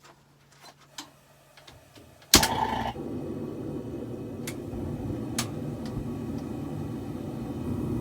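A forge fires up with a sudden whoosh about two seconds in, then runs with a steady rushing noise while heating the blade's steel for forging.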